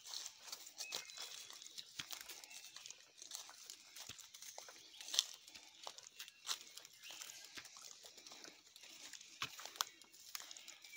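Footsteps crunching and rustling through dry leaf litter, twigs and undergrowth on a woodland path: irregular crackles and snaps, the sharpest about five seconds in.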